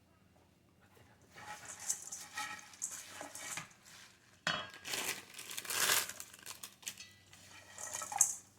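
Caesar salad kit being put together in a bowl: irregular rustling and crinkling with clinks of dishes and utensils. It starts about a second in, is loudest in the middle, and has a sharp click near the end.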